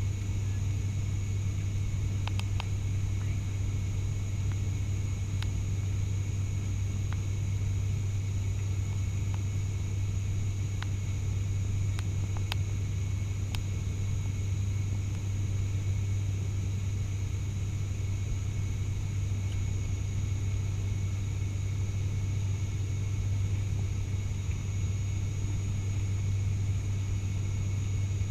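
Steady drone of an ATR 72-600's Pratt & Whitney PW127M turboprops heard inside the cabin, dominated by a deep, even propeller hum with a faint high whine above it.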